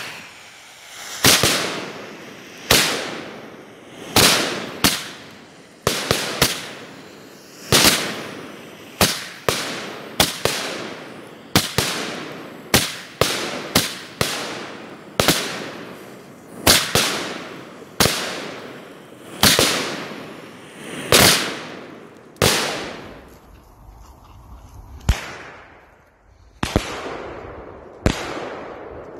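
Jorge 'Imagine' fireworks cake firing shot after shot: about two dozen sharp bangs, roughly one a second, each trailing off quickly. The bangs pause briefly about two thirds of the way through, then four more follow.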